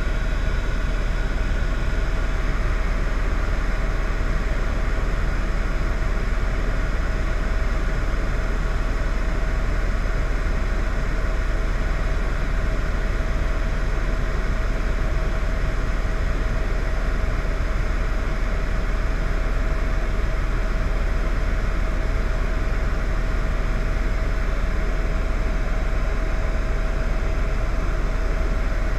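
Steady, unchanging vehicle engine noise: a constant low rumble with a thin, steady hum over it.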